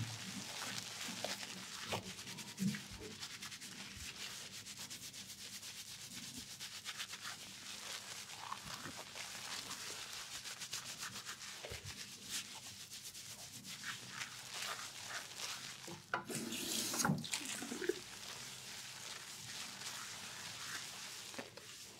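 Fingertips scrubbing shampoo lather into hair and scalp: a continuous close-up wet scratching and rubbing of quick strokes, with a louder stretch of noise about three-quarters of the way through.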